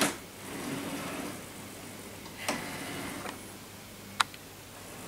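R2-D2 dome drive, a Pitman gear motor at 19.7:1, turning the aluminium dome slowly with a low, quiet whirr and no grinding. The whirr fades after about three seconds, with a light click midway and a sharp tick near the end.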